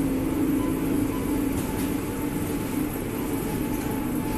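Bagging line for granular feed running: a steady machine hum with a fainter high whine over it and a few faint clicks about a second and a half in.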